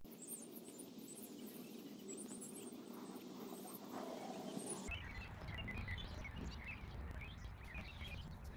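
Outdoor ambience: birds chirping faintly in short scattered calls over a steady hiss, with a low rumble coming in about five seconds in.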